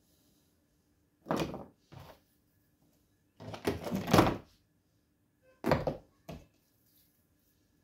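Hand tools handled on a wooden workbench, a tape measure and marker pen among them: a few short knocks and clatters, with the longest and loudest cluster about halfway through.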